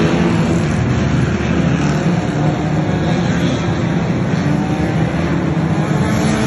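A pack of 1500cc banger racing cars racing round the track, several small engines running hard at once, their pitches shifting as they go.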